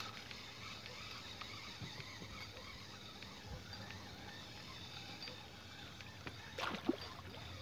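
A small pike being reeled in on a wobbler, cutting a wake across calm water, with quiet background. About six and a half seconds in comes a short splash, the pike thrashing at the surface.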